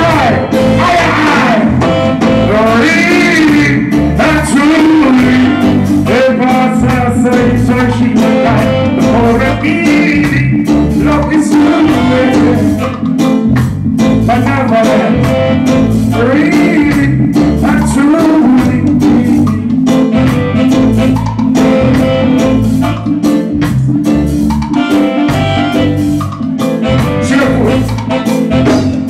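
Live reggae band playing loudly through a club PA, with drums and bass keeping a steady beat under keyboards, while a male vocalist sings into a microphone.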